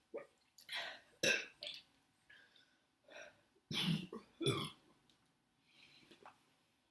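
A woman burping repeatedly after drinking a lot of cola: a string of short burps, the loudest two near the middle and a fainter one near the end.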